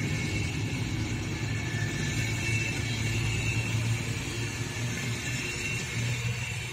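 DB Class 218 diesel-hydraulic locomotive with its MTU 12V 956 TB 11 V12 engine working under load as it pulls an Intercity train away, heard as a steady low drone at a distance while the coaches roll past. It eases slightly near the end.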